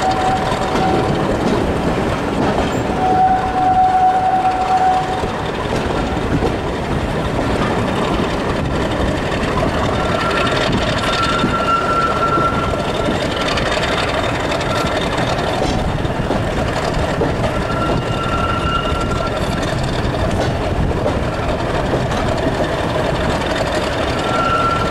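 Class 50 diesel locomotive 50035 Ark Royal hauling a train of coaches, heard from an open coach window. Its English Electric V16 engine and the wheels on the rails make a steady heavy rumble. Short high wheel squeals come several times as the train rounds the curve.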